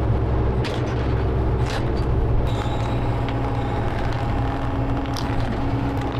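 Excavator's diesel engine running steadily under load, with a steady whine over it and a few sharp knocks.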